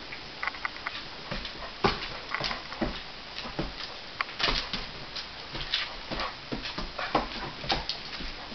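Doberman's claws clicking and paws tapping on a hardwood floor in quick, irregular steps as it moves about.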